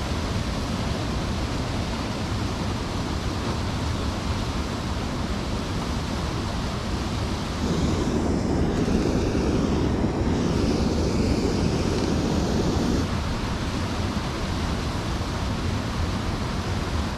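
Steady rush of creek water pouring over a small waterfall, with some wind on the microphone. The rush turns louder and deeper for about five seconds in the middle.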